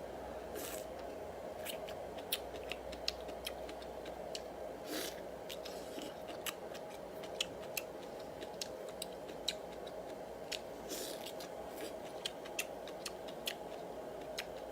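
A person chewing and eating, making many irregular short clicks and smacks over a steady background hum.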